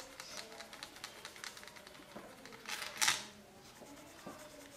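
Coloured pencil scratching on heavy Bristol paper in quick, short shading strokes, with one louder, longer scrape about three seconds in.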